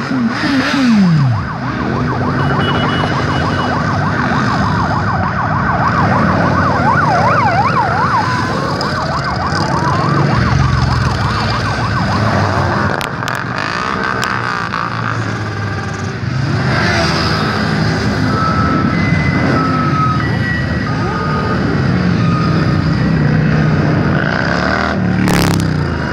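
A procession of motorcycles, mostly cruisers, riding slowly past one after another, their engines rumbling and swelling as each bike goes by. About a second in, a close-passing bike's engine note drops. A siren wails in the background through roughly the first ten seconds.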